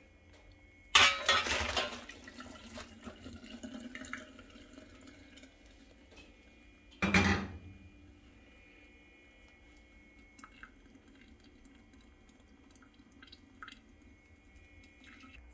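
Cooked ziti poured from a saucepan into a stainless steel colander in a sink about a second in: a sudden splash that tails off into dripping as the pasta drains. A second short, loud splash or clatter comes about seven seconds in, followed by a few faint drips.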